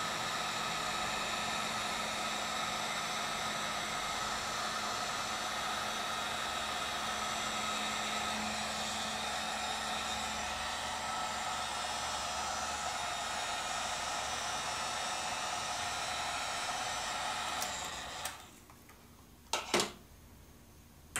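Wagner electric heat gun blowing steadily with a fan whine while it shrinks heat-shrink tubing over a soldered wire joint. Near the end it is switched off and runs down within about half a second, and two sharp knocks follow.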